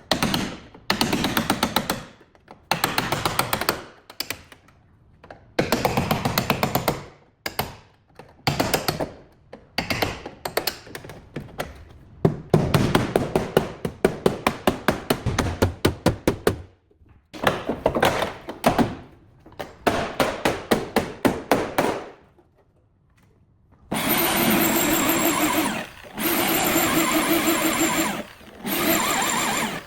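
A power tool run in repeated bursts of a second or two, each a rapid rattling stutter of pulses, with short pauses between. From about 24 seconds in, a steadier tool with a held whine runs in longer bursts.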